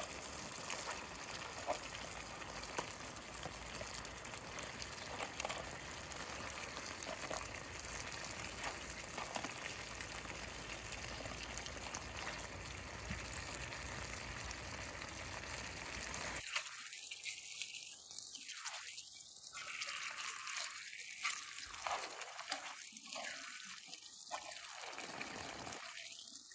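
A pan of Thai red coconut curry with crab simmering over a campfire, with a steady bubbling.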